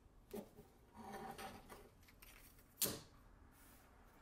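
Flat steel bars for a 15N20 and 1095 Damascus billet being stacked by hand: faint sliding and a few light clicks of plate on plate, the sharpest near three seconds in.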